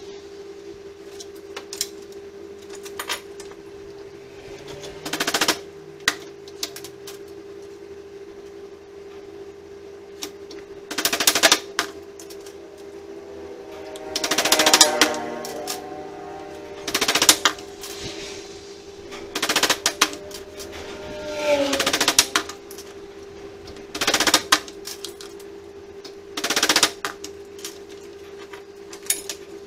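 Steel hammer striking metal wire on a bench vise: about eight short bursts of blows, mostly two to three seconds apart, some with a brief metallic ring, over a steady low hum.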